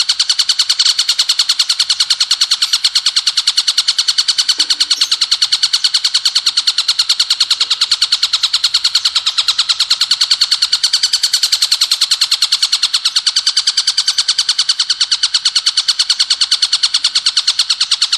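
Ciblek gunung, a prinia, singing in the rapid machine-gun 'bren' style: a loud, unbroken stream of high, evenly repeated chirps, about ten a second.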